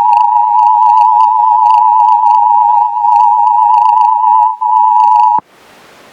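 Loud emergency-alert attention tone near 1 kHz, warbling and glitching, with faint gliding chirps and clicks and a couple of brief dropouts. About five seconds in it cuts off with a quick downward sweep, leaving low static hiss.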